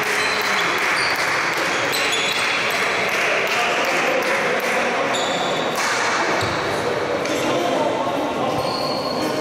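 Echoing sports-hall sound of a basketball game: indistinct voices of players and people courtside, with many short, high squeaks of basketball shoes on the wooden court floor.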